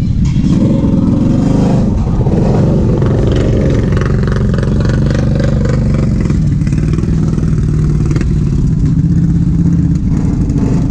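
ATV engine running hard and loud, its pitch climbing and falling as the throttle is worked, then holding steadier in the second half.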